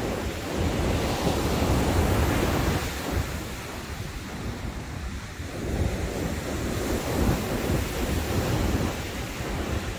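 Ocean surf breaking and washing up a sandy beach, with wind buffeting the microphone in low rumbling gusts. The wash swells louder twice, about a second in and again around six seconds.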